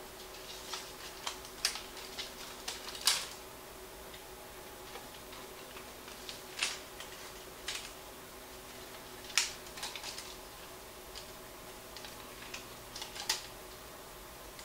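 Irregular metallic clicks and knocks from a 1950s Philips 35 mm projector's film path as film is threaded by hand, with its rollers, guides and gate latches being opened and closed. Three sharper knocks stand out, about three, nine and thirteen seconds in, over a faint steady hum.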